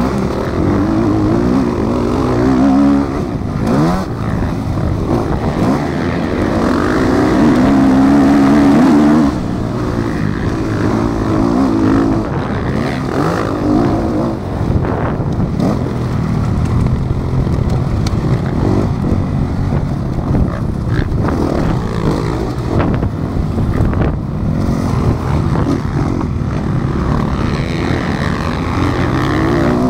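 Motocross bike engine heard from the rider's helmet camera, revving up and down as the rider accelerates, shifts and slows around a dirt track; the revs are at their loudest and highest a quarter of the way in, then drop.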